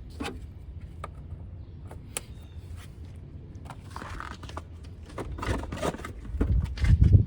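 Scattered clicks and scrapes of engine-bay parts and tools being handled, with louder handling noise and a low rumble building near the end.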